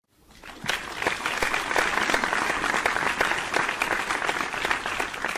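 Applause sound effect: a crowd clapping, swelling up over the first second and holding steady before it starts to die away near the end.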